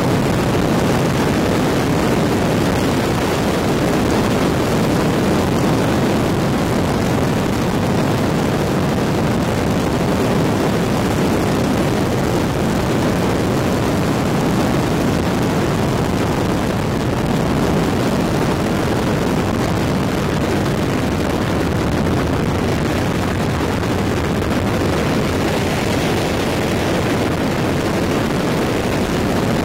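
Helicopter in flight, its engine and rotor making a steady, loud noise.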